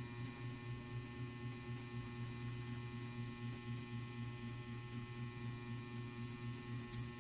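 Steady low electrical hum with a faint buzz of higher steady tones over it, and a couple of faint ticks near the end.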